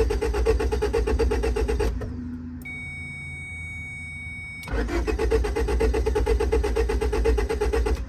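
2004 Honda Civic's starter cranking the engine in two long, evenly pulsing runs: the first stops about two seconds in and the second begins near the five-second mark, with a quieter pause between. The engine cranks without catching, which the owner puts down to low fuel.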